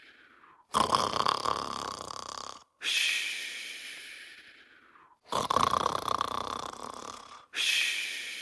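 Cartoon character snoring in a steady repeating cycle, about every four and a half seconds: a loud, rasping snore of about two seconds, then a breathy, airy breath that fades away.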